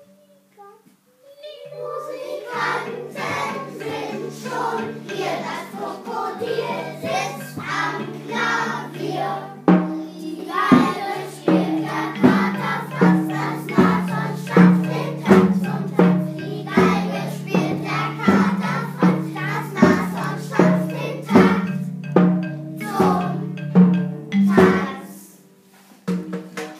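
Music from a children's stage performance: held instrumental notes, joined about ten seconds in by a steady beat, with children's voices singing along.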